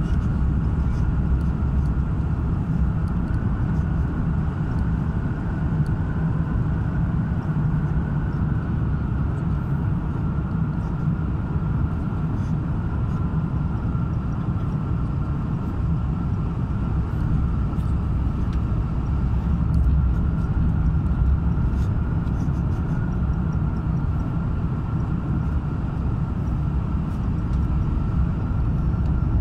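Steady low rumble of a vehicle in motion, heard from inside, with a faint steady whine above it.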